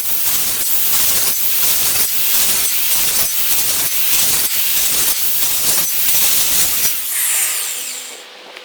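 Circular saw running and cutting a series of shallow kerfs across a wooden 4x4 post to clear out a notch, the noise pulsing with each pass. Near the end the saw is released and its blade winds down with a falling whine.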